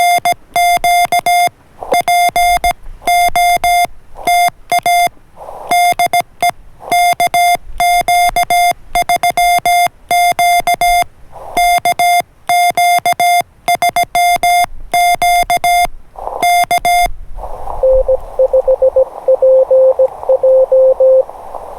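Morse code sidetone from an MFJ-9200 transceiver: one steady mid-pitched tone keyed in dots and dashes with paddles for about 17 seconds. Then the receiver's band hiss comes up, and a lower-pitched, faster Morse signal sounds through it for about three seconds near the end.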